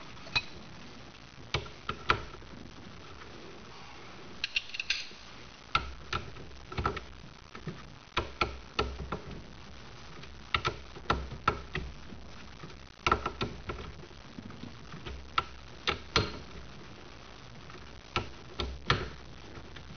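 Ratchet wrench clicking in short, irregular runs, with occasional light knocks, as the steering wheel retaining nut is run down and tightened.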